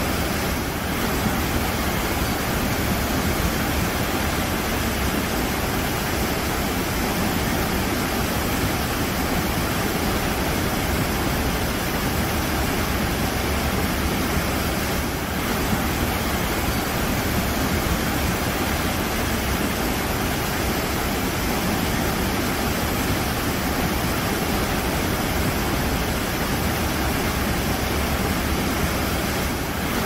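Waterfall rushing, a steady even noise across all pitches with no pauses or separate splashes.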